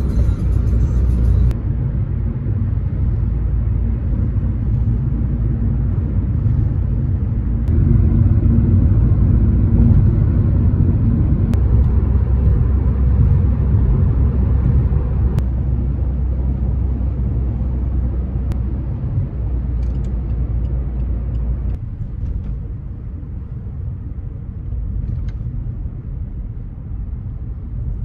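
Car road noise heard from inside the cabin: a steady low rumble of engine and tyres while driving, easing a little about three-quarters of the way through.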